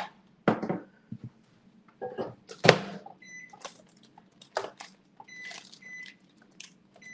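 Microwave oven being started: a sharp knock of the door shutting, then several short, high keypad beeps as the time is entered.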